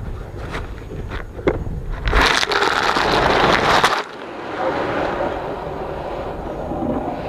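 Dry calf feed pouring and rattling into a feeder for about two seconds, cutting off sharply. A softer rushing pour follows.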